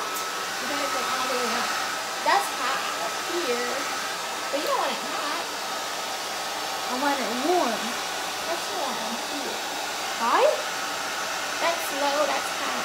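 Handheld hair dryer with a diffuser attachment running steadily while drying wet curly hair: an even rush of blown air with a faint steady whine.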